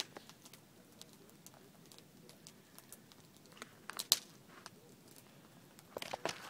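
A cat chewing on a small bunny: scattered sharp crunches and clicks of teeth on flesh and bone, loudest in a quick cluster about four seconds in and again near the end.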